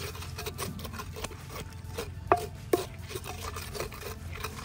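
Wooden pestle crushing and grinding fresh red chillies in a mortar, a run of quick rubbing strokes with two louder knocks a little past halfway.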